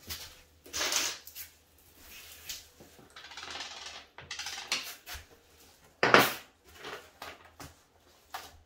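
Metal bolts and washers clinking and sliding on a wooden tabletop as they are picked through by hand, with short rustles and a louder handling noise about six seconds in.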